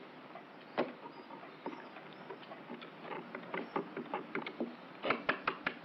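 A series of light, sharp clicks and taps over a faint hiss, scattered at first and quickening into a rapid run of about five or six a second near the end.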